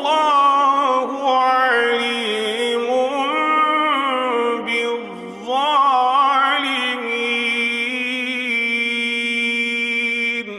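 A man chanting the Quran in a long, ornamented melodic phrase. His voice glides through runs, breaks briefly about halfway, then holds a long steady note near the end before stopping, with a short echo trailing off.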